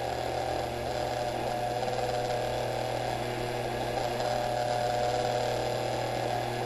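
A steady low electrical hum, with a faint wavering tone above it.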